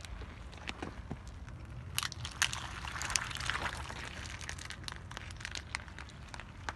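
Car tyre rolling over and crushing plastic bottles and plastic bags of water beads: plastic crackling and crinkling in scattered sharp clicks, thickest about two seconds in, over a low steady rumble.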